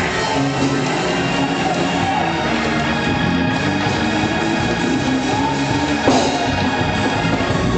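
Live church music led by an organ, with drums, playing steadily; one loud stroke about six seconds in.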